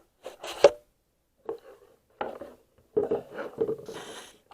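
Handling noises from objects being moved about on a bench: a sharp knock just under a second in, then scattered rubbing and clattering.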